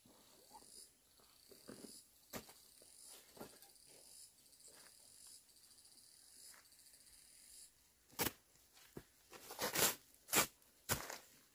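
Faint, high-pitched insect chirring with a regular pulse. From about eight seconds in, several loud rustles and rips from a woven plastic sack being handled and opened.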